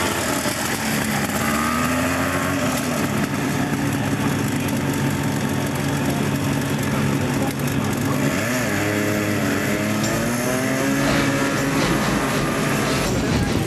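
Engine of a two-seat, roll-caged buggy-style go-kart running as it pulls away from the start. Its pitch rises near the start and again about eight to nine seconds in.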